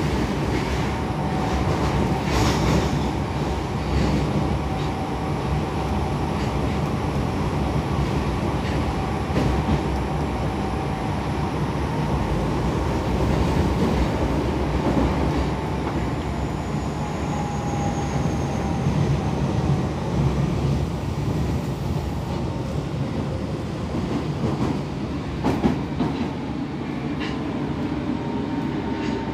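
Osaka Metro 22 series subway car running at speed through a tunnel, heard from inside the car. A steady, loud rumble of wheels and running gear carries a faint whine and a few sharp rail clicks. It is a refurbished car with a notably loud running sound.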